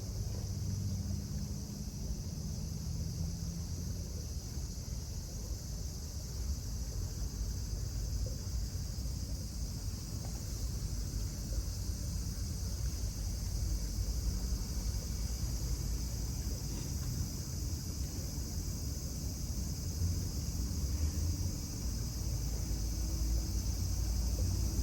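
A steady, unbroken chorus of insects buzzing high overhead, with a low rumble of wind on the microphone underneath.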